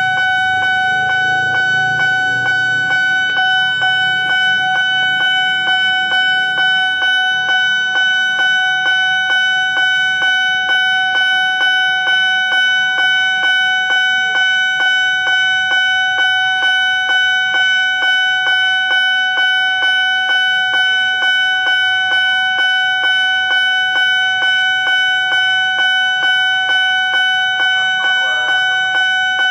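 Railway level-crossing warning bell ringing in an even, steady rhythm of about three strikes every two seconds, sounding while the boom barrier is down to signal that a train is approaching. A low rumble underneath fades out over the first ten seconds or so.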